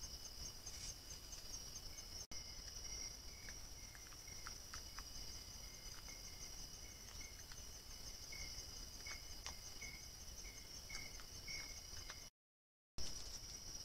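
Night insect chorus, mainly crickets: a steady high trill with a fainter steady tone beneath it and short chirps repeating lower down, plus scattered faint ticks. The sound cuts out for about half a second near the end and comes back with a click.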